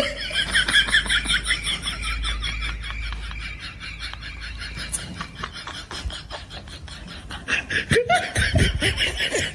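Laughter: a long run of quick laughing sounds, loudest at the start, fading in the middle and picking up again near the end.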